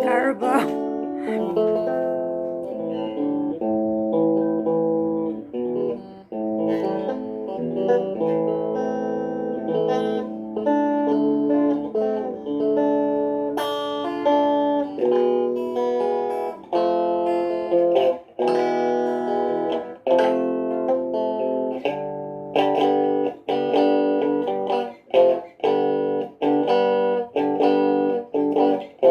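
Acoustic guitar being played, chords and single notes ringing out. Firm, regularly spaced strums fill the last several seconds.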